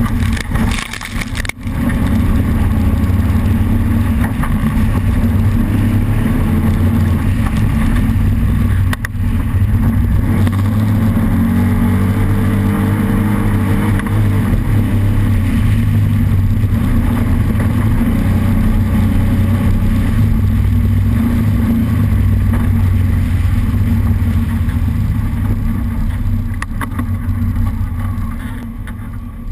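Off-road race vehicle's engine running hard and steadily, with brief dips in level about a second and a half in and again about nine seconds in.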